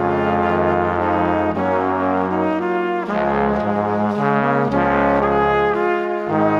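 Instrumental music led by brass, with sustained notes changing every second or so over a low bass line.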